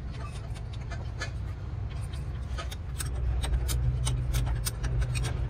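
Irregular light clicks and taps of tools at work on the engine, over a steady low hum that grows louder about three seconds in.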